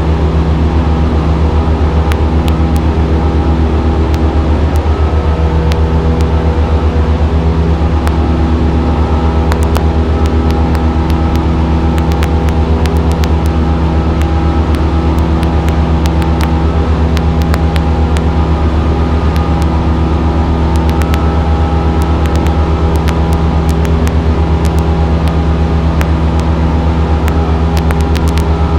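Single-engine light airplane's piston engine and propeller droning steadily, heard from inside the cockpit while climbing out after takeoff.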